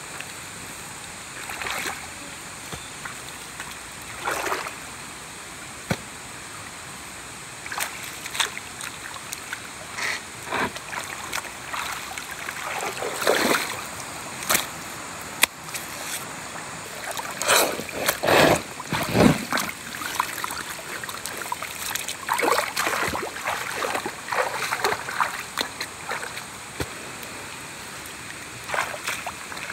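Water splashing and sloshing in irregular bursts, loudest around the middle, over a steady background hiss.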